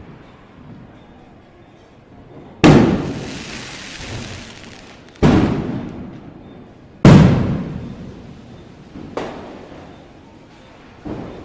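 Firecrackers bursting: three loud bangs about two seconds apart, each echoing away over a second or two, the first followed by a high hiss. Two fainter bangs come near the end.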